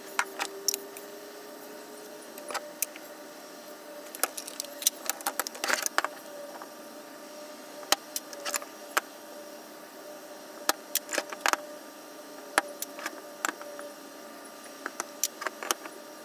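Aluminium soft-plastic lure molds being unclamped, opened and handled: irregular sharp metal clacks and clinks as mold halves come apart and are set down on the bench, over a steady faint hum.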